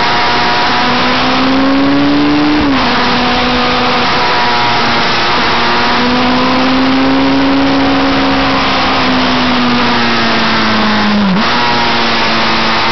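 600 cc inline-four sport bike engine at speed, heard from onboard under heavy wind rush. Its pitch climbs and then drops sharply about two and a half seconds in, rises and falls slowly through the middle, and dips suddenly near the end before picking straight back up.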